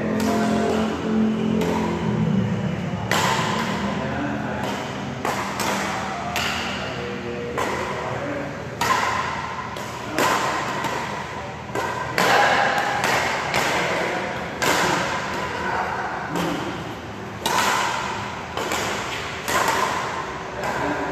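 Badminton rackets striking a shuttlecock in rallies: a run of sharp smacks, often less than a second apart, each ringing briefly in a large echoing hall.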